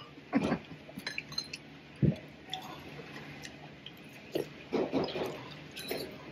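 Eating sounds at a table: a spoon clinking against a bowl and soup being scooped and sipped, with a sharp knock about two seconds in and a few softer sounds near the end.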